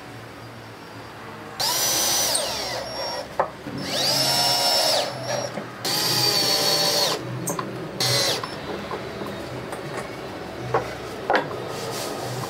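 Cordless drill driving screws into plywood. There are three runs of about a second each and a short fourth one, the motor whine rising as it starts and dropping as it stops, with a few sharp knocks between.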